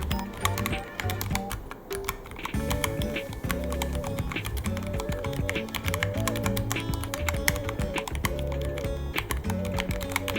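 Typing on a Ducky One 3 mechanical keyboard: a rapid, uneven stream of key clicks, over background music.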